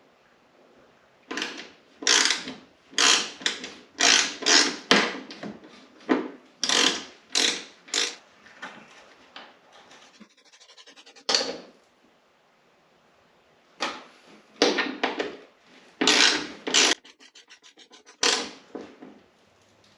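Hand ratchet wrench driving in bolts: quick back-and-forth strokes, each a short rasping burst of ratchet clicks. Twice the handle is swung freely, giving a run of rapid fine clicks.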